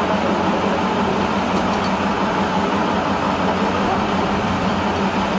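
Boat engine running steadily, a constant low hum over a haze of noise.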